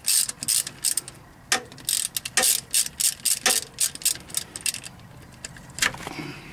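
Hand socket ratchet clicking in quick runs of strokes as an exhaust manifold stud nut is worked loose, with a few louder knocks in between.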